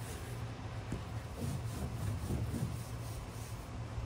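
Rag rubbing and wiping across the aluminum hood of a semi truck, taking off a product that has softened the old finish, over a steady low hum.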